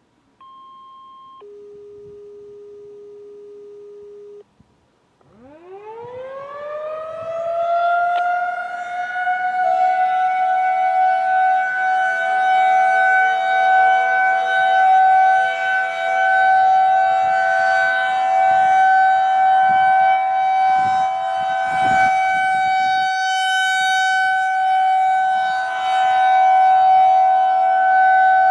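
A short high beep, then a lower steady electronic tone for about three seconds. Then a Federal Signal 2001-SRN electromechanical siren winds up from low pitch and settles into a steady alert tone, its loudness swelling and fading slightly as it rotates, with echoes.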